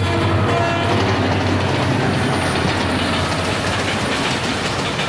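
A passing train: a diesel locomotive's engine running, then, about two seconds in, the coaches' wheels clattering over the rail joints.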